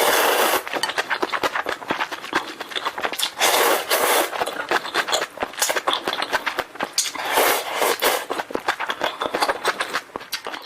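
Close-miked eating of Korean-style instant noodles: three long slurps, about three and a half seconds apart, with rapid wet chewing and mouth clicks between them.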